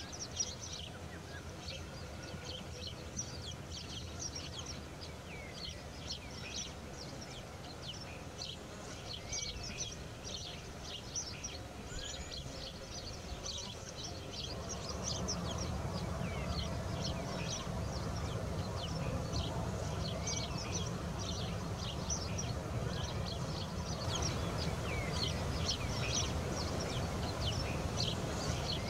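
Small songbirds chirping: many short, high calls in quick succession over a low steady rumble, which grows louder about halfway through.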